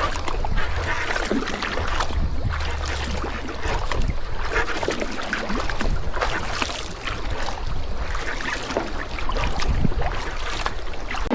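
Sea kayak being paddled in wind and chop: water splashing and sloshing irregularly around the paddle and hull, with wind buffeting the microphone in a low rumble.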